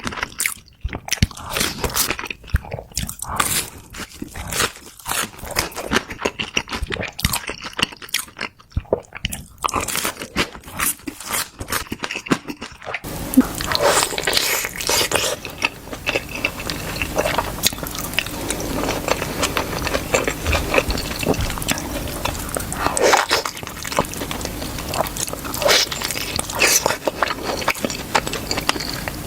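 Close-miked eating: dumplings being bitten into and chewed, with many quick wet smacks and clicks. About halfway through, a steady hiss comes up under the chewing.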